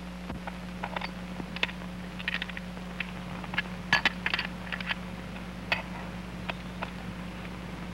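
Scattered light metallic clicks and clinks of small parts being handled, coming irregularly and sometimes in quick clusters, over a steady low hum.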